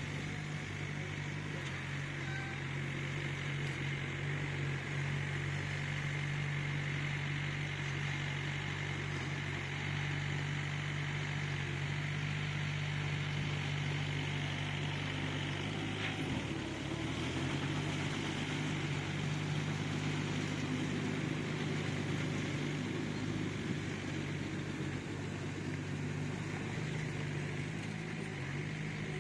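Bulldozer's diesel engine running steadily with a low drone; about halfway through its pitch drops briefly, then comes back up.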